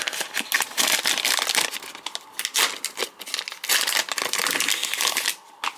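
Thin clear plastic wrapper of a hockey card pack crinkling and crackling as a stack of cards is handled and pulled out of it. The rustling comes in quick, irregular bursts and stops shortly before the end.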